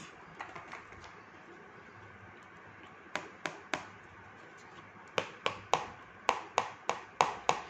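Sharp taps as a stiff paper card is knocked against a plastic tray to shake off loose rangoli powder. Three taps come about three seconds in, then a quicker run of taps, about three or four a second, near the end.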